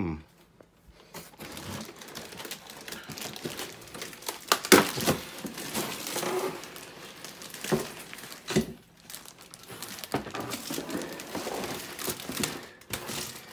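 Clear plastic bags crinkling and rustling as the model aircraft's wrapped wing panels are handled and shifted in a cardboard box, with several sharper crackles along the way.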